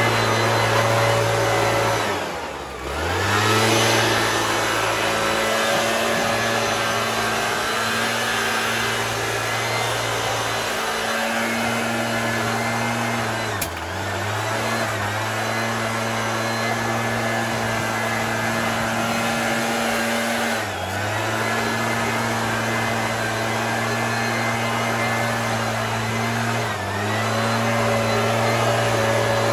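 Gas-powered backpack leaf blower running steadily at high throttle. Its engine pitch dips briefly four times as the throttle is let off and opened again.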